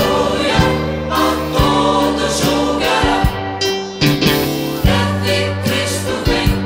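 Gospel vocal group singing in choir harmony over a band, with a sustained bass line and regular drum hits.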